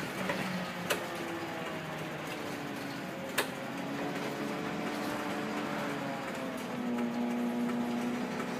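Leyland National Mk1 single-deck bus on the move, heard from inside: its Leyland 510 diesel engine drones, the tone shifting and rising in pitch as it pulls away. Body panels rattle and tick throughout, with two sharp knocks about one and three and a half seconds in.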